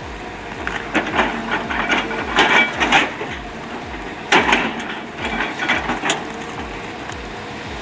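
Heavy machine's diesel engine running with a steady low throb, while wood cracks and crunches in several loud bursts, as roots or a stump break under the machine.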